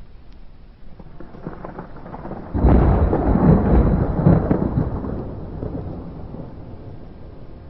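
Thunder: a low rumble builds, breaks into a loud clap about two and a half seconds in, then rolls on and slowly fades, with a steady hiss of rain underneath.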